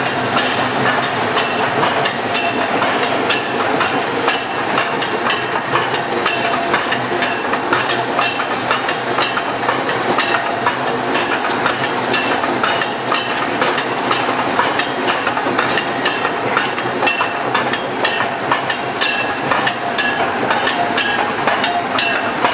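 Six-strand D-type rope making machine running at speed: a steady, dense metallic clatter with rapid, irregular clicks and knocks.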